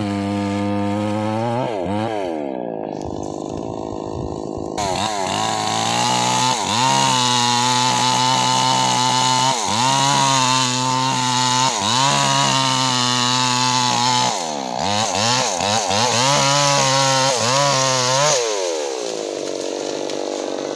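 Petrol chainsaw with a 22-inch bar cutting through a mahogany trunk: the engine revs high and sags again and again as the chain bites into the wood, then drops back to idle near the end.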